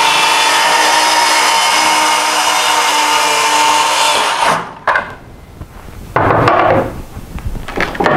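DeWalt cordless circular saw cutting MDF along a homemade track-saw guide, a steady whine under the cut that ends abruptly about four and a half seconds in. Short, louder knocks and handling noises follow.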